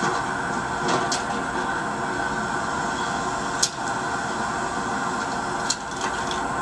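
Steady rushing noise of a car cabin on the move, with a few sharp clicks about a second in, midway and near the end.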